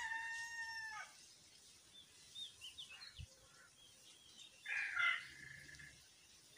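Rooster crowing: the long held last note of the crow falls away about a second in. Small bird chirps follow, then a second, shorter fowl call about five seconds in.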